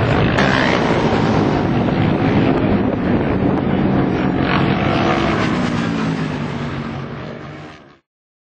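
Racing motorcycle engines running, their pitch gliding up and down, under heavy wind buffeting on the microphone. The sound fades out and drops to silence shortly before the end.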